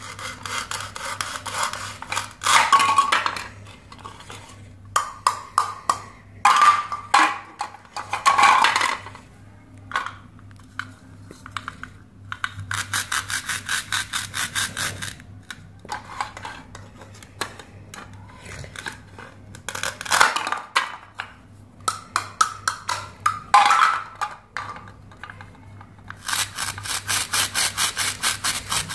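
Plastic toy knife sawing through Velcro-joined toy fruit and vegetables, and hands pulling the halves apart. The Velcro rips in repeated spells of fast, rasping crackle, each lasting a second to a few seconds, with quieter plastic handling between them.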